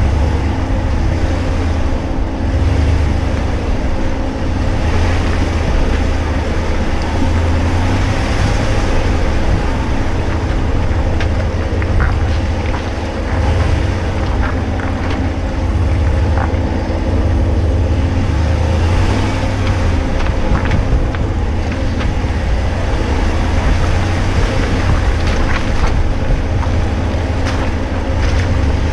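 2019 Ram Rebel pickup driving on an off-road trail: a steady low engine and drivetrain rumble with road noise, broken by scattered light knocks and clicks.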